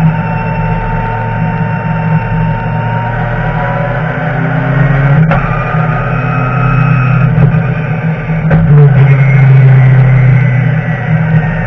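BMW touring race car's engine running hard, heard from inside the stripped cockpit, with two short sharp breaks in the note about five and eight and a half seconds in, and growing louder near the end.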